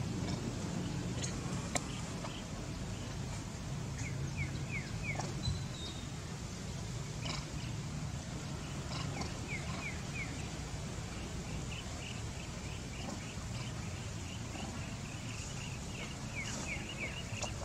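Outdoor ambience: a steady low rumble with a small bird giving short, high, falling chirps in quick runs of three or four, several times over, plus a few faint clicks.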